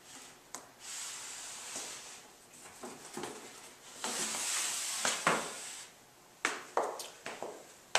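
Sliding whiteboard panel pushed along its track by hand: two long rubbing, rolling swishes, with a knock as it starts and several sharp knocks near the end as the panel stops.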